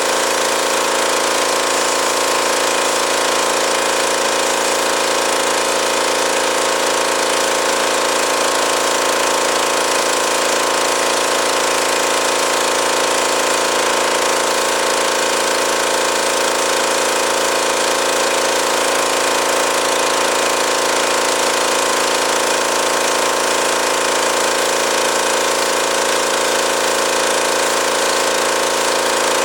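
Pressure washer running steadily: a constant hum of several tones over a hiss, unbroken throughout.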